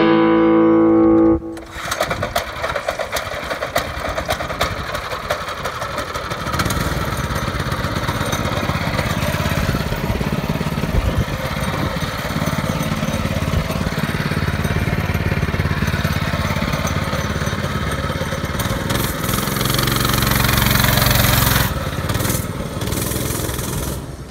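Guitar music cuts off about a second and a half in. Then the mini bike's small horizontal-shaft engine runs, uneven at first and steadier and louder from about six seconds. It is loudest near the end as the bike pulls away, then drops off.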